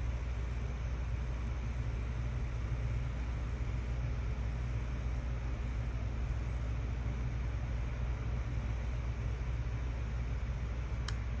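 Steady low rumble of background noise, with one faint click near the end.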